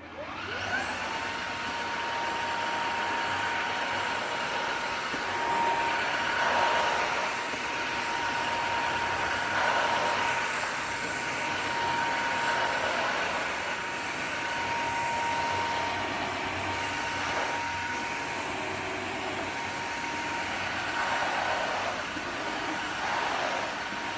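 Cordless wet-dry floor vacuum starting up: its motor whines up to speed within the first second, then runs steadily with a high whine over a hiss, swelling and easing a little every few seconds.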